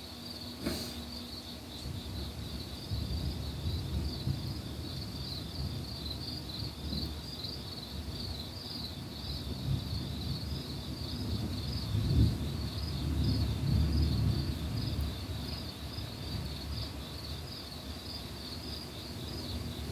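Night insects chirping in a steady, pulsing high trill, with a low rumble of distant thunder swelling and peaking about twelve seconds in.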